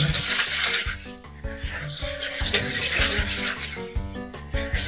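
Toy washing machine running, its drum turning and sloshing water and doll clothes with a steady rushing splash. Music plays along with it.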